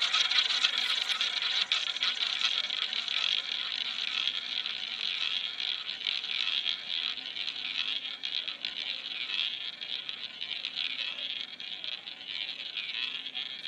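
Roulette ball spun onto a wooden roulette wheel, rolling around the track with a steady whirring that slowly fades as it loses speed.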